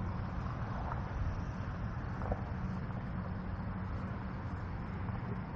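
Distant highway traffic: a steady, even rush of tyres and engines, heaviest in the low end.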